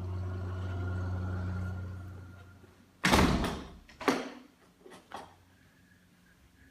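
A door shutting with a loud thud about three seconds in, followed by a second knock and a few lighter clicks. A steady low hum fades away just before the thud.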